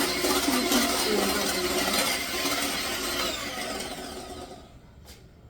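Electric mixer running in a bowl of cupcake batter (butter, sugar and eggs), then dying away about four seconds in.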